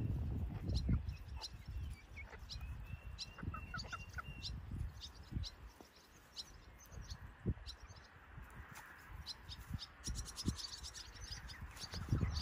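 A small bird chirping again and again in short high notes, with a quick rattle of chirps near the end, over wind rumbling on the microphone that is heaviest near the start and end.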